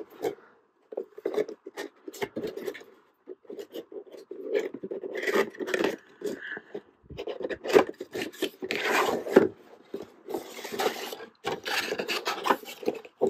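Cardboard window box being worked open by hand: irregular scraping, rubbing and rustling of the cardboard, with a few sharp clicks.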